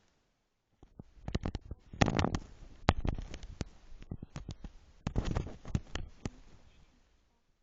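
Handling noise: cloth rustling and rubbing over a phone's microphone, with irregular clicks and knocks. It starts about a second in and dies away near the end.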